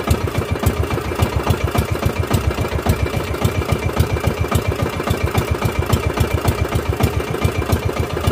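Motorised outrigger boat's engine running steadily, with an even, rapid low beat.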